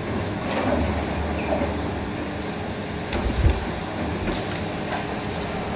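Long-reach demolition excavator working its shear against the concrete of a building, engine running under scattered cracks and clanks of breaking concrete. A heavy thump comes about three and a half seconds in.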